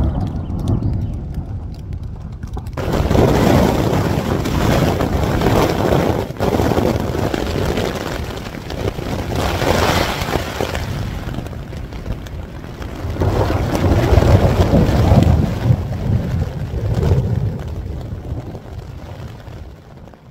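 Thunderstorm: thunder rumbling in several long swells over a steady rush of storm noise. The rush jumps up sharply about three seconds in, and everything fades away at the end.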